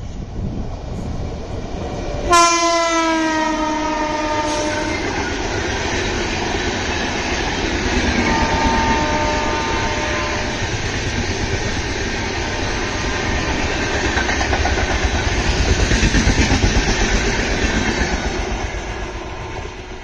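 WAP-7 electric locomotive sounds a horn blast of about two seconds at speed, its pitch falling as it comes by, with a shorter, fainter horn note about eight seconds in. The passenger coaches then rush past with a steady wheel clatter that is loudest about sixteen seconds in and fades near the end.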